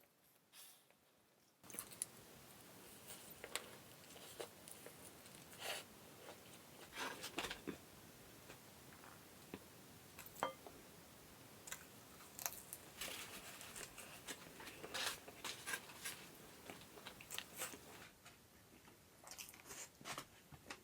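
A person eating close to the microphone, with irregular crisp crunches and chewing sounds over a faint steady hiss that starts about a second and a half in.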